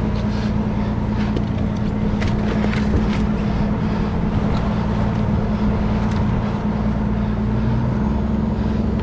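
A fishing boat's engine running steadily, giving a constant low drone, with a few light clicks about two to three seconds in.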